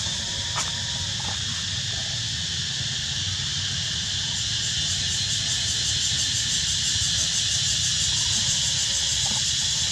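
Steady high-pitched chorus of forest insects, a fast pulsing trill that grows a little stronger from about halfway, over a low rumble, with a couple of faint clicks.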